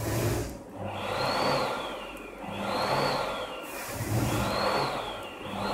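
Cold fireworks (cold spark) machines jetting after being started together by remote: a hiss that swells and fades about every second and a half, with a rising-then-falling whistle on each swell.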